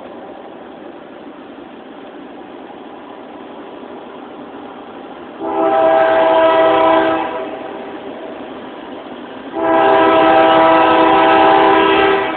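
Norfolk Southern diesel freight locomotive's air horn sounding two long blasts of several tones together, the first about five seconds in and the second near the end, each lasting about two seconds, over a steady background rumble.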